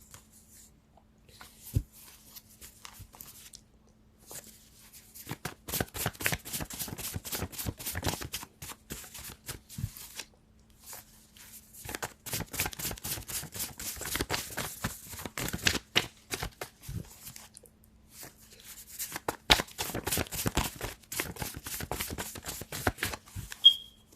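A deck of cards being shuffled by hand, in three spells of rapid flicking several seconds long with short pauses between.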